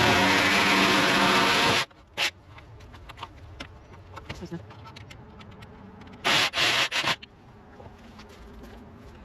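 Handheld power tool working on wood framing. It runs steadily with a whine for about two seconds and stops abruptly. A brief blip follows, and then three short trigger bursts a little after the middle.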